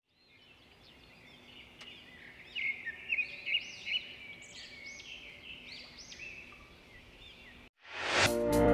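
Birds chirping in a busy series of short, arched calls, loudest a few seconds in and thinning out afterwards. Near the end the chirping cuts off and electronic music with a steady beat starts with a rising sweep.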